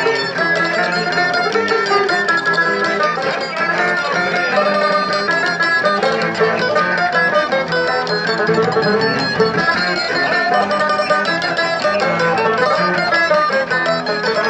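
Live acoustic string band playing: banjo, a small mandolin-type instrument and an acoustic guitar plucked together in a steady run of many quick notes.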